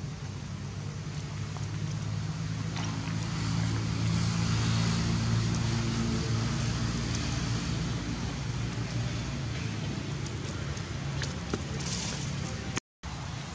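A motor engine running steadily nearby, a low hum that swells a few seconds in and eases off, over outdoor background noise with a few faint clicks. The sound cuts out briefly near the end.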